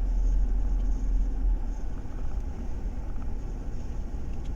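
A 2012 Chevrolet Tahoe's V8 engine running with a steady low rumble, which eases slightly about a second and a half in.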